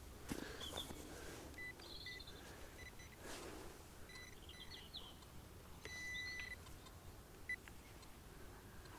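Short electronic beeps from metal detecting gear, all at one pitch, sounding a few times with a longer tone about six seconds in, while soil from a dug hole is searched by hand for the target. A brief rustle of handled soil about three seconds in, and faint high chirps.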